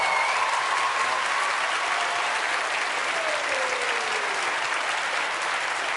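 Large audience applauding in a big hall, the clapping thick and sustained and easing off slightly.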